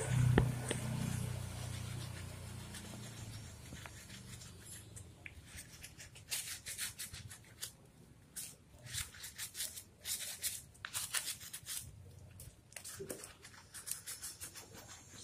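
A sponge scrubbing a wet, soapy dog's coat, making short rubbing strokes in quick runs from about five seconds in. Near the start there is a knock and a low hum that fades over the first few seconds.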